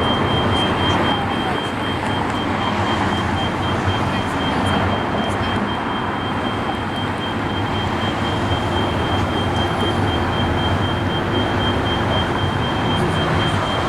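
Steady vehicle running noise, a loud even rumble with a thin constant high-pitched whine over it.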